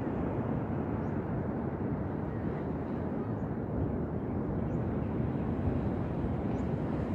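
Ocean surf breaking on a sandy beach: a steady low rushing wash with no distinct single waves standing out.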